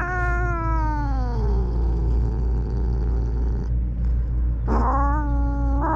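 Domestic cat giving two long, drawn-out meows. The first falls in pitch as it fades after about two seconds, and the second starts near the end and is held. A steady low rumble runs underneath.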